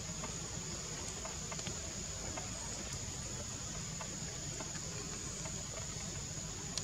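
Steady high-pitched insect drone, with faint scattered ticks and soft patters.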